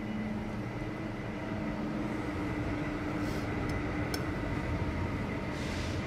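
Steady hum of running kitchen machinery, with a couple of faint clicks of a metal spoon a little past the middle.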